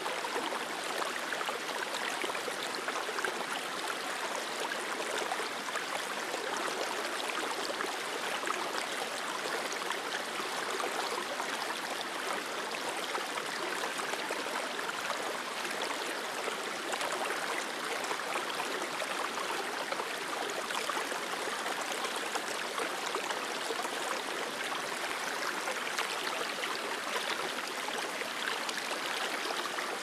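Running river water: a steady, unbroken rush of a stream flowing over rocks.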